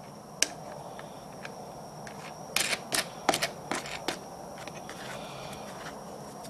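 Small clicks and scrapes of a metal wing nut being turned by hand on the plastic air cleaner cover of a Greyhound 6.5 hp engine: one click about half a second in, then a cluster of clicks and scrapes around the middle.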